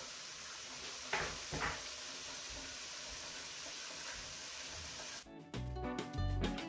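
Sliced onions and chopped garlic frying in butter in a nonstick pan: a steady sizzle, with two short clicks about a second in. Background music with a beat comes in near the end.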